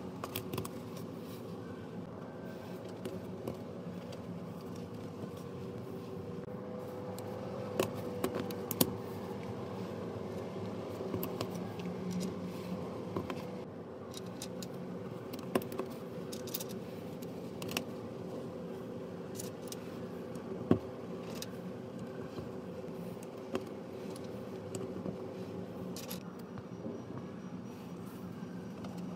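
Scattered small clicks and taps of LEGO Technic plastic beams and pins being handled and pushed together, over a steady low hum.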